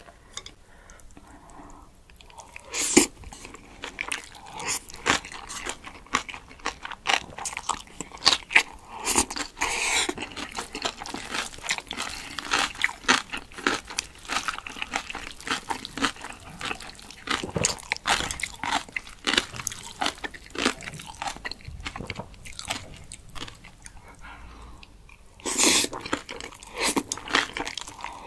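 Close-miked eating sounds: chewing and crunching on spicy cold noodles and dumplings, with many quick wet mouth clicks. A louder, longer slurp of noodles comes near the end.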